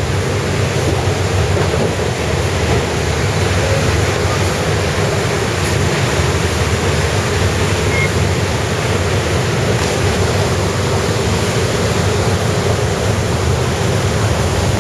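Steady rushing noise of a train running along flood-submerged tracks, with wind buffeting the microphone.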